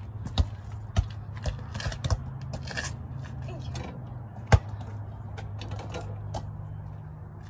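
Soccer ball bouncing on a concrete driveway, about two bounces a second, then a louder single knock about four and a half seconds in as the ball hits a portable basketball hoop during a dunk attempt.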